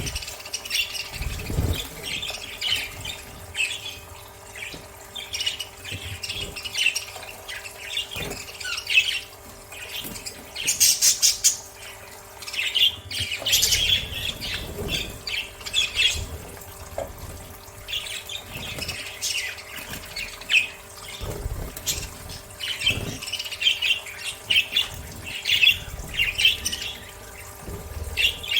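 Budgerigars chattering and squawking in quick, irregular calls throughout, with some water splashing from their bathing.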